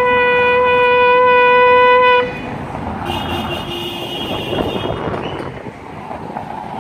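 Ram's-horn shofar blown in one long, loud, steady note that breaks off about two seconds in. After it, street traffic noise, with a fainter, higher tone for a couple of seconds.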